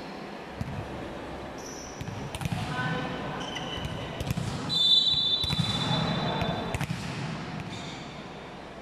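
Volleyball rally in a large echoing sports hall: sharp ball hits and bounces, players shouting, a referee's whistle blowing shrilly for about a second near the middle, then shouts and cheers as the point ends.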